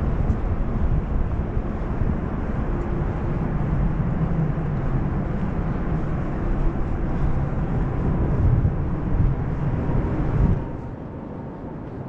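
Low, steady roar of a commercial airliner passing overhead, stopping suddenly about ten and a half seconds in.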